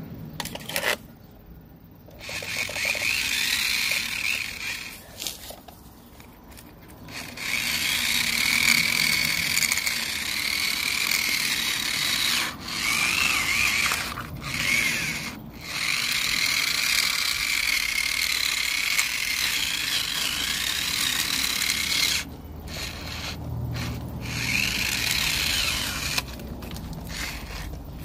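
Radio-controlled car's motor whining, rising and falling in pitch as it revs, with tyres scraping in dirt. It cuts out for a second or two several times.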